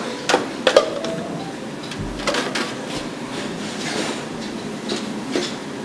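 Metal sheet pan and kitchen utensils being handled, with a few sharp clanks in the first second and scattered lighter clinks over steady background noise.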